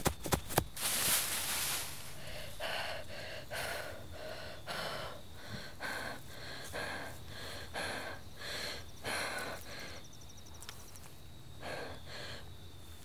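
A young woman panting hard after running, about two quick breaths a second. The breaths stop about ten seconds in, with one more near the end. A few sharp clicks and a loud rush of noise come at the start.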